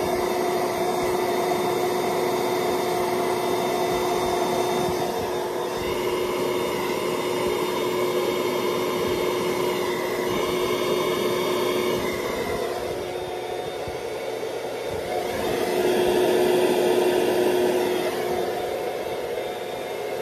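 Electric air pump running steadily as it inflates an Intex Dura-Beam airbed: a constant whirring rush of air with a steady hum, dipping a little about two-thirds of the way through and then coming back up.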